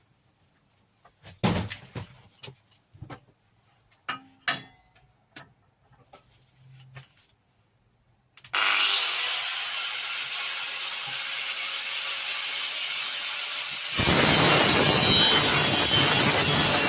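A few knocks and clicks from handling the workpiece, then about eight seconds in a power cutting tool, most likely an angle grinder, spins up with a rising whine and runs steadily. About five seconds later it bites into the metal along the marked line and the sound turns louder and coarser.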